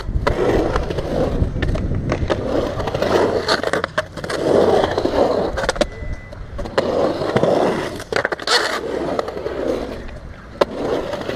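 Skateboard wheels rolling and carving on smooth concrete bowl surfaces, with a rough rumble that swells and fades as speed changes. Several sharp clacks from the board come through it.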